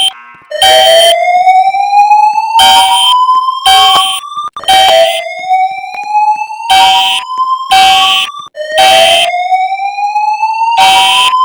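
Fire alarm system sounding its evacuation signal: a slow-whoop tone rising in pitch, repeated three times at about four seconds each, overlapped by alarm horn blasts in groups of three, a second apart with a pause between groups (the temporal-3 evacuation code).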